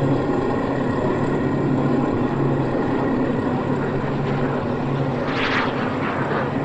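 Steady engine drone with a low hum that swells and fades about once a second, and a brief rush of higher noise about five seconds in.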